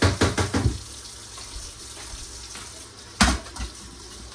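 Kitchen faucet running into a stainless steel sink as the sink is rinsed out, with a quick cluster of knocks in the first second and one sharp knock about three seconds in.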